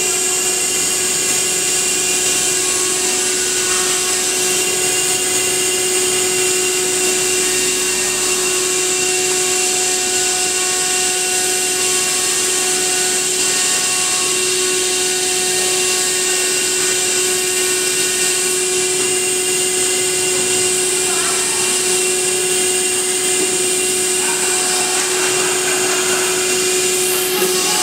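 CNC router running: a steady high spindle whine with a constant hiss of machining, unchanging throughout.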